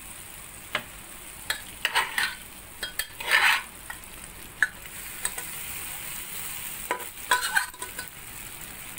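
Metal ladle scraping and clinking against a large metal kadai as cooked rice is turned into a fried tempering of peanuts, dals, red chillies and curry leaves. Irregular clicks and short scrapes, the longest about three seconds in, over a steady high hiss of frying.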